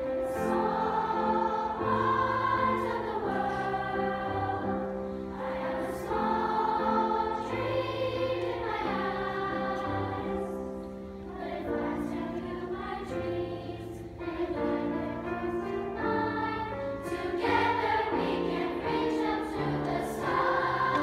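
A children's choir singing a song in unison with piano accompaniment, with sustained notes that change every second or so.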